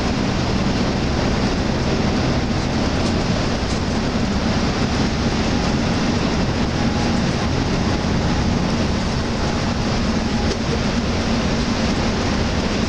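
Cabin noise inside a Hyundai Universe Xpress Noble coach cruising at highway speed: a steady engine hum under even road noise.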